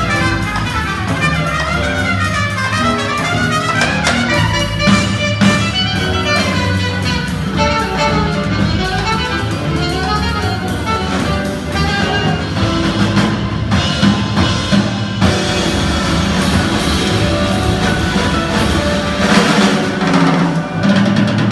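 Live jazz from a small band: trumpet and saxophone lines over piano, upright bass and drum kit with cymbals, swelling briefly louder near the end.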